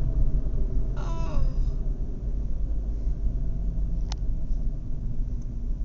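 Steady low road rumble inside a moving car's cabin. A short voice sound, falling in pitch, comes about a second in, and a single sharp click about four seconds in.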